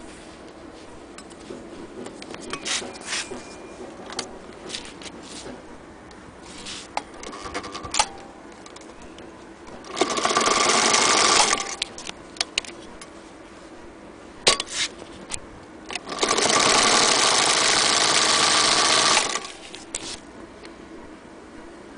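Singer Featherweight 221 sewing machine running in two bursts of stitching: one of about a second and a half about ten seconds in, and a longer one of about three seconds a few seconds later. Between them, scattered light clicks.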